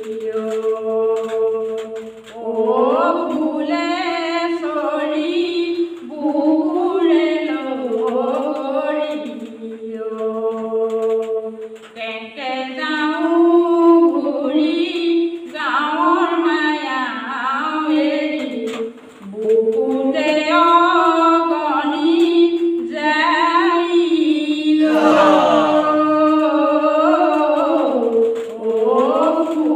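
A woman singing an Assamese folk song (lokageet) unaccompanied into a handheld microphone, in long held notes that slide between pitches, with short breaths between phrases.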